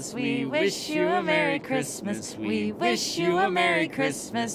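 A man and a woman singing a Christmas carol together, unaccompanied, in held, wavering notes.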